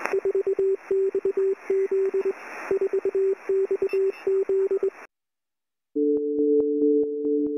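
Morse code beeps: one steady mid-pitched tone keyed in short and long beeps over a hiss, cutting off about five seconds in. After about a second of silence, electronic music starts with two held notes and a fast ticking beat.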